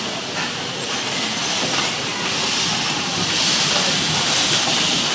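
Electric bumper cars running on the ride floor: a steady hiss and rumble that grows a little louder past the middle.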